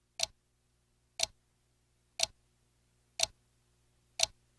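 A clock ticking evenly, one tick a second, five ticks, over a faint steady hum.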